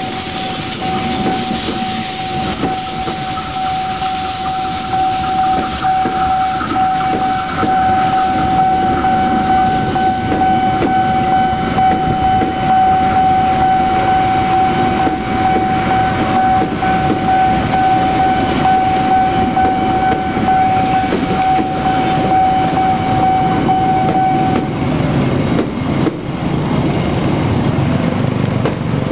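KA Tawang Jaya passenger coaches rolling past a level crossing, their wheels rumbling and clattering on the rails, over a steady high-pitched warning tone from the crossing signal. The tone cuts off about 25 seconds in, and a road vehicle's engine comes in near the end.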